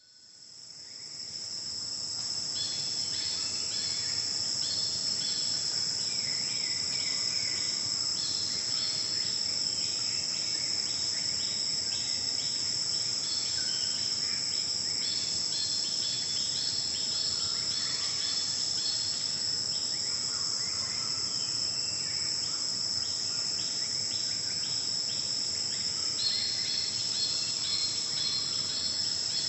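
Forest insect chorus: a steady, continuous high-pitched shrilling, with many short high chirps repeated in quick runs over it. It fades in over the first couple of seconds.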